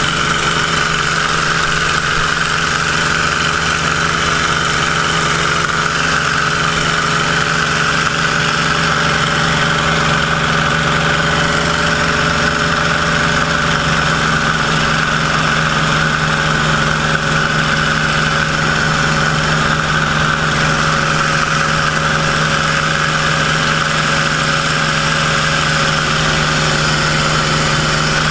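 Grumman F8F Bearcat's Pratt & Whitney R-2800 eighteen-cylinder radial engine running at high power through lift-off and the climb. It is heard from inside the cockpit as a steady, loud drone mixed with a rushing of air.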